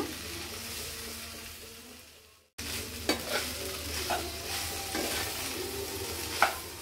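Spatula stirring cooked rice into sizzling vegetables in a non-stick kadai, a steady frying hiss with a few sharper scrapes of the spatula against the pan. The sound fades out about two and a half seconds in and then starts again.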